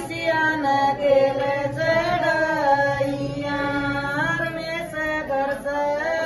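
Singing in a slow, chant-like style: long held notes that slide up and down in pitch.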